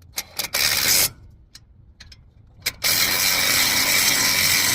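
Impact wrench tightening a brake caliper bracket bolt. It gives a couple of quick trigger blips and a half-second burst, then runs long and steady from about three seconds in.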